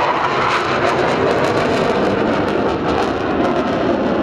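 Fighter jet engine noise heard from the ground as the jet climbs steeply: a steady, dense roar.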